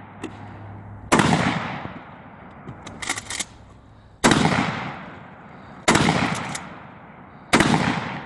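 DP-12 12-gauge bullpup shotgun firing buckshot: four shots at uneven intervals of about one and a half to three seconds, each trailing off over about a second. A few small sharp clicks come between the first and second shots.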